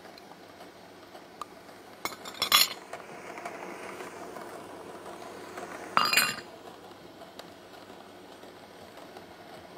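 Cooking utensils and dishes clinking against a wok as a vegetable filling is stirred: a few sharp clinks about two seconds in, soft scraping while stirring, and another loud clink about six seconds in.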